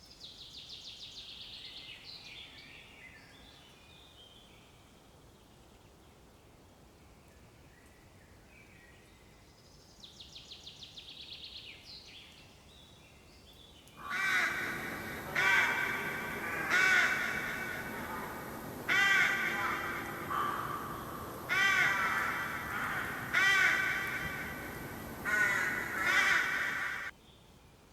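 Raccoon chittering: two faint bursts of a fast, high trill, one at the start and one about ten seconds in. From about halfway, a bald eagle calls a run of about seven loud, high, piping chirps.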